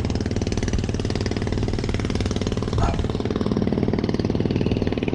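A small engine running steadily with a fast, even chugging pulse.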